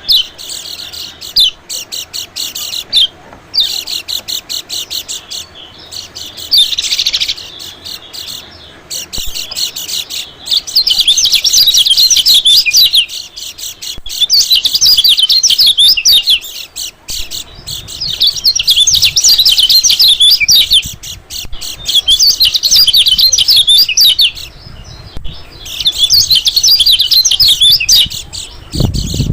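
White-eye (pleci) calls played as a bird-lure recording: rapid high chips through the first several seconds, then about five bursts of fast, high twittering chatter, each a few seconds long, with short gaps between.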